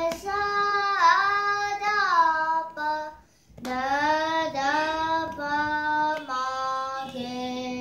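A young girl singing a Carnatic geetham solo without accompaniment, holding long notes with slides between them. She breaks off briefly about three seconds in, then sings on.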